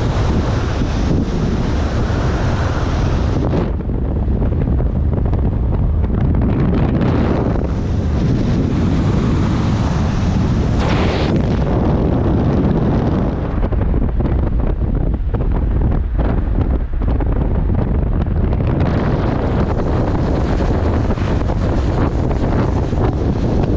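Wind rushing over the microphone from a moving vehicle on the highway, over a steady low rumble of road and engine. The hiss of the wind drops back about three and a half seconds in, swells briefly around the middle and comes back strongly for the last few seconds.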